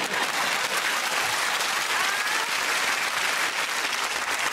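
Studio audience applauding steadily: dense clapping from many hands.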